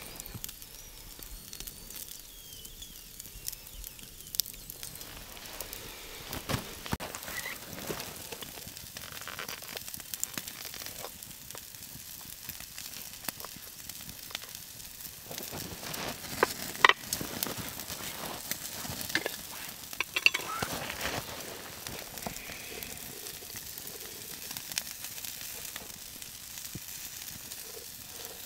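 Steak and asparagus sizzling on a wire grill rack over campfire coals, with the embers crackling. There are many small pops and two sharper clicks a little past halfway.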